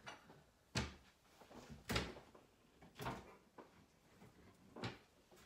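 Kitchen cupboards and a drawer being opened and shut off-microphone: about four faint knocks and clatters, roughly a second apart.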